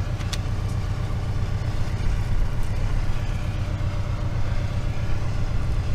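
Diesel engine idling steadily, with a short click a fraction of a second in.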